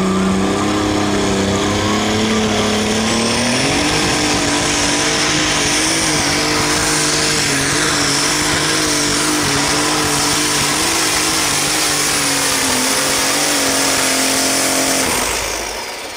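Light modified pulling tractor's engine running steadily, then revving up at the launch and pulling at full throttle with its pitch wavering under load. It cuts off near the end, where a high whine that rose at the launch slides away.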